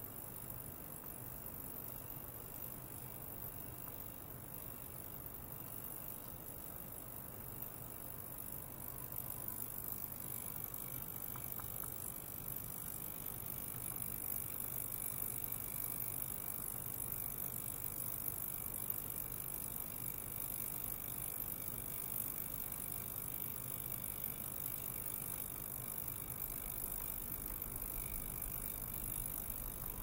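Small 42 kHz ultrasonic cleaner running: a steady low hum with a high hiss, a little louder from about ten seconds in.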